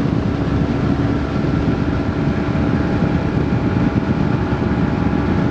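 Outboard motor of a 2001 Triton TR 186 bass boat running steadily under way, with an even, unbroken engine and water drone.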